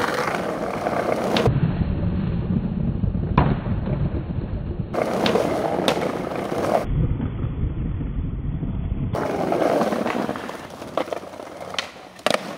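Skateboard wheels rolling over brick paving and asphalt with a steady rumble, broken by several sharp clacks of the board popping and landing during tricks. The sound changes abruptly a few times as one clip cuts to the next.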